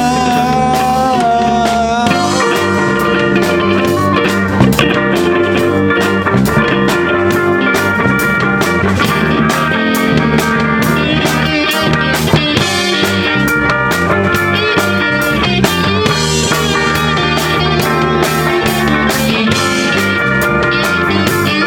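Instrumental break of a rock song: guitars over bass and drums with a steady beat, no singing.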